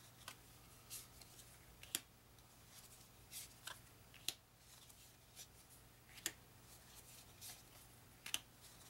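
Thick coated game cards being counted off a stack by hand: a dozen or so faint, irregular snaps and slides of card stock, roughly one a second.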